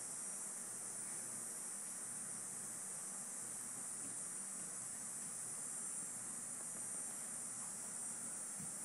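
Steady, faint hiss of room tone, with no distinct sounds standing out.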